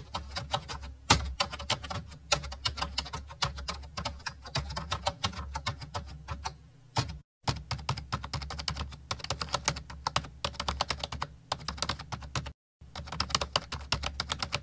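Computer keyboard typing sound effect: a fast, steady run of key clicks, broken by two brief dropouts about seven and twelve and a half seconds in.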